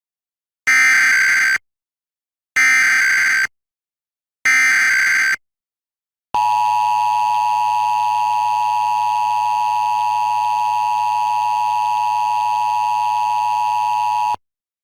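Emergency Alert System SAME header: three short bursts of screeching digital data tones, each under a second and about a second apart. After a brief pause, the two-tone EAS attention signal (853 and 960 Hz together) holds steady for about eight seconds, then cuts off sharply. This sequence marks the start of an EAS alert being relayed, here a required monthly test.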